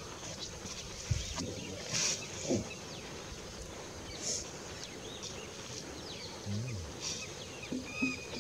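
Riverbank ambience: a steady high hiss with scattered short chirping calls, plus a few soft knocks and rustles.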